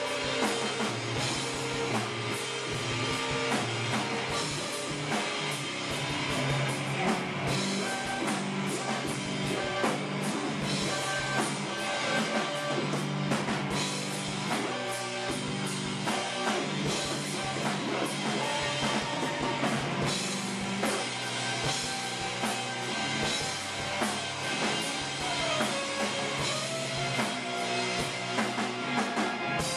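Live rock band playing, with drum kit and electric guitar. The music is continuous and dense with drum hits, and a note slides down in pitch near the end.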